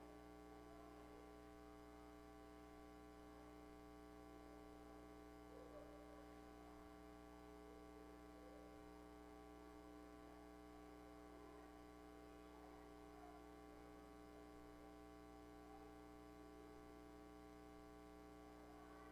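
Near silence: a steady electrical hum.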